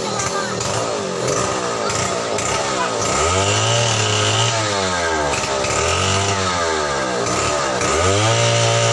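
Two-stroke chainsaw running and being revved up and down, its pitch rising and falling three times in the second half.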